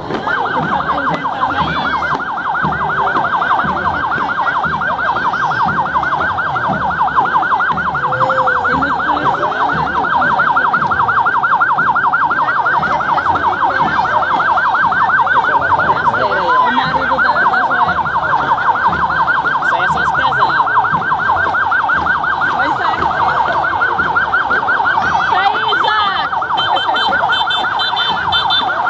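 Emergency-vehicle siren sounding a fast yelp, its pitch rising and falling several times a second without a break, over crowd noise. A second, higher warbling tone joins near the end.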